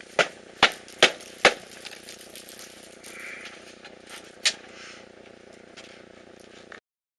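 Four sharp knocks in quick, even succession, then a single knock a few seconds later, over a steady low background hum; the sound cuts off near the end.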